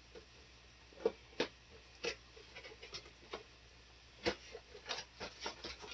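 Light clicks and taps of hard plastic as an action figure and its packaging are handled, with a few sharper clicks about a second in, at two seconds and past four seconds, and a quick run of small ticks near the end.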